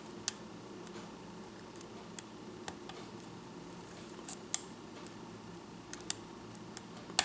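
Faint, irregular metallic clicks and ticks of a small lockpick hook working the pins of a 5-pin Kwikset pin-tumbler lock, with a sharper click near the end.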